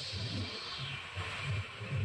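Passenger train running along the track, heard from inside the coach: a low, uneven rumble of the wheels, with a rushing hiss of air that fades about a second in.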